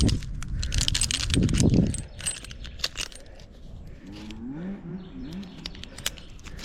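Metal climbing hardware, such as carabiners and other gear on an arborist's harness, clinking and jingling in a run of sharp clicks. There is a heavy rumble on the microphone in the first two seconds.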